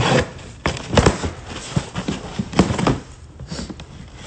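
Cardboard shipping box being handled and opened by hand: a string of irregular knocks and thumps with scraping and rustling of cardboard and packing material.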